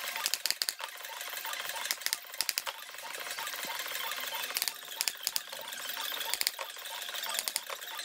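Staple gun firing staples into an upholstered seat cover, in quick runs of several sharp clacks a second or two apart, over a steady hiss.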